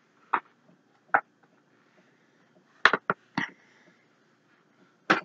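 About six brief rustling and knocking sounds, scattered and irregular, as things are rummaged for and handled, with a cluster of three around the middle.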